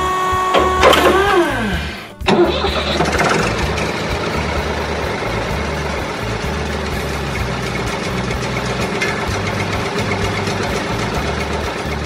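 Cartoon tow-truck engine sound effect: after a sound falling in pitch as the truck is hooked and lifted, an engine starts about two seconds in and runs steadily, with background music underneath.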